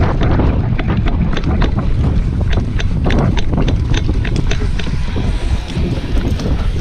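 Wind buffeting the microphone in a heavy low rumble, with many sharp clicks and knocks at irregular spacing.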